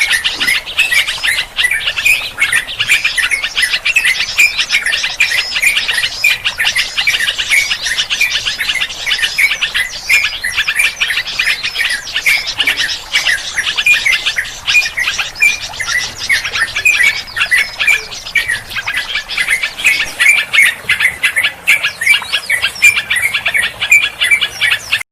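A dense, noisy chorus of many small birds chirping and squawking rapidly over one another, with no break. It is a mixed bird-lure recording of the kind bird trappers play to draw birds in.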